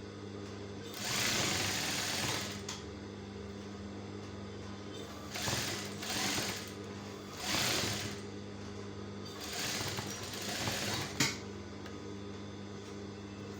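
Sewing machine stitching a seam in four short runs with pauses between, ending in a sharp click a little after eleven seconds in, over a steady low hum.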